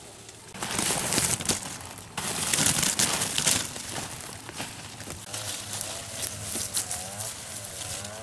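Loud rustling and crinkling as fruit-picking gear is handled: a cloth sack shaken over a woven basket and leafy citrus branches brushed. It dies down after about three and a half seconds into lighter rustles and clicks.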